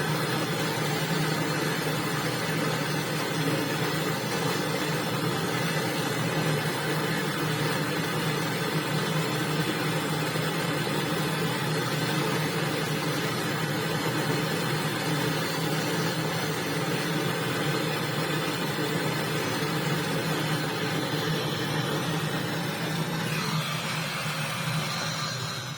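Motor-driven machine running steadily with a low hum and a constant whirring hiss, shutting off near the end.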